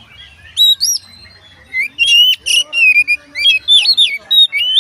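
Oriental magpie-robin (kacer) singing: loud, varied whistled notes that slide up and down, a short phrase about half a second in, then a quick run of phrases from about two seconds on.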